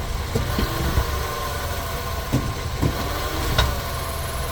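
A 2019 Nissan Sentra's engine idling steadily, with a few short knocks over it, the sharpest about two and a half and three and a half seconds in: the clunk the car makes when shifted into reverse.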